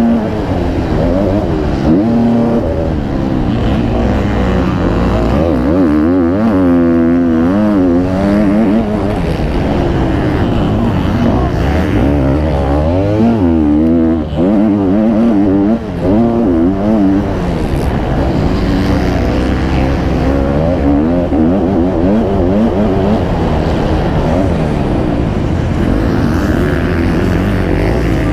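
Several MX2 motocross bikes racing, their engines revving up and down through the gears, several at once and overlapping, loud and unbroken.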